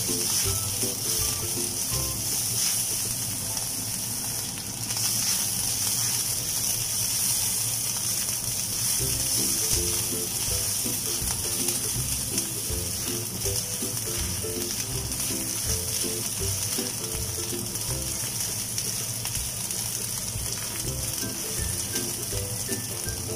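Minced lemongrass sizzling in hot oil in a wok, with a spatula scraping and stirring against the pan. The sizzle is a steady hiss that grows louder about five seconds in.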